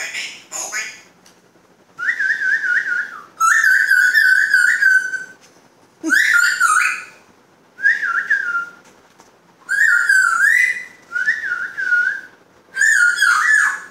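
African grey parrot whistling: a string of about nine short warbling phrases, each around a second long, with a wavering pitch and short pauses between them.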